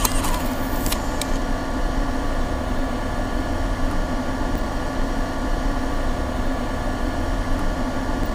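Steady loud whirring hum of a laptop cooling fan running hard, with a brief hiss at the start and a click just after a second in.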